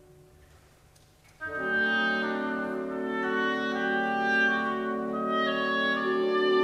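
Orchestral background music: one piece fades out, and about a second and a half in a new passage of sustained wind and brass chords comes in and holds.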